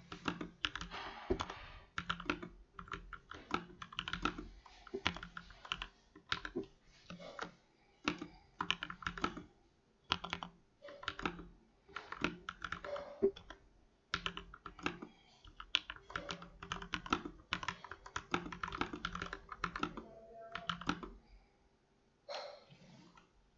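Typing on a budget custom mechanical keyboard: quick runs of keystroke clacks in bursts, with brief pauses between runs and a longer pause near the end.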